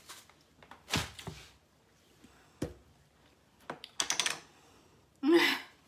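A few separate knocks and clatters of hard plastic as a Ninja food chopper is taken apart: the motor head lifted off and set down on the counter and the bowl handled. The loudest clatter comes near the end.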